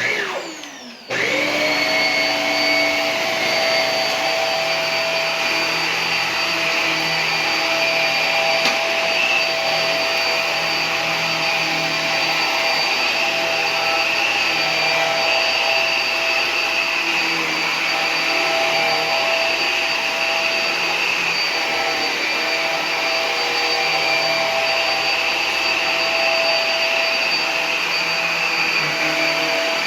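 Hoover PowerDrive Pet upright vacuum cleaner switched on about a second in. Its motor spins up to a steady whine, and it runs loud and continuous while vacuuming a carpet.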